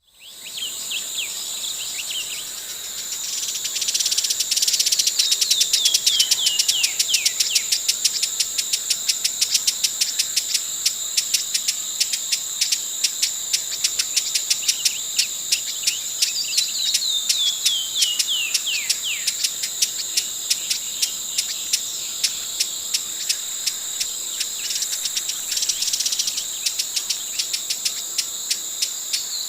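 Broad-billed hummingbird giving runs of thin, high notes that fall in pitch, several times, over a steady high insect chorus that pulses rapidly and is the loudest sound throughout.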